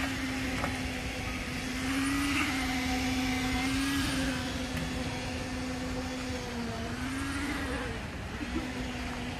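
A machine motor running with a steady hum at one pitch, dipping briefly a couple of times as if under load, over a background hiss, while wet concrete is being spread on a roof slab.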